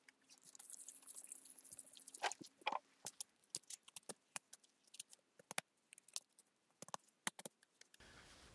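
Faint, scattered clicks and crunches, as of a mud-covered rifle and gear being handled, with a couple of sharper ticks a little past two seconds in.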